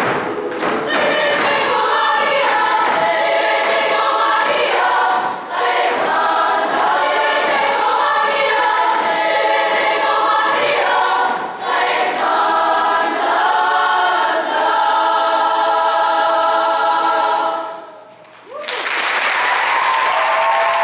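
Large youth choir singing in multi-part harmony, apparently a cappella. The singing stops on a final chord about 18 seconds in, and audience applause follows.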